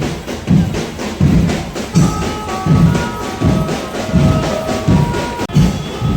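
Festival procession band: heavy drums pounding a steady, driving beat with sharper strokes between them. About two seconds in, a higher melody of held notes joins the drums.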